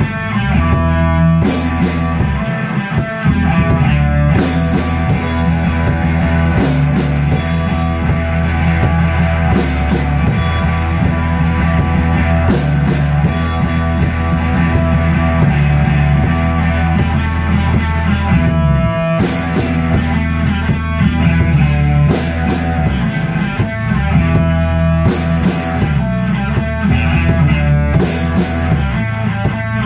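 Rock band playing an instrumental piece live: a Sonor drum kit with repeated cymbal crashes over an electric bass line.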